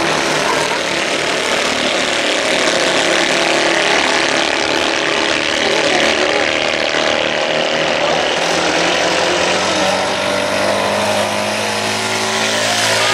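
Several 2CV cross race cars, Citroën 2CVs with air-cooled flat-twin engines, running flat out around a dirt track, their engines revving up and down against a constant rushing noise.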